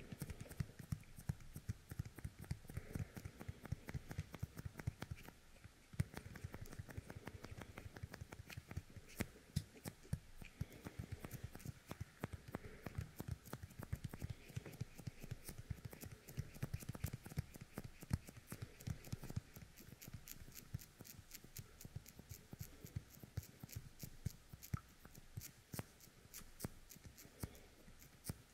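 Fingertips coated with the sticky resin of a yōkai kemuri toy, pressed together and pulled apart again and again right at a dummy head's ear: a soft, continuous, irregular crackle of tiny sticky clicks.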